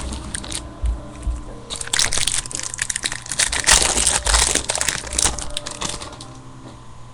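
Plastic-foil trading card pack wrapper being torn open and crinkled by hand, a dense run of crackling for a few seconds in the middle.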